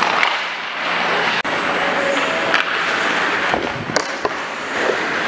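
Ice hockey skates scraping on rink ice, with a few sharp clicks from sticks and puck during play.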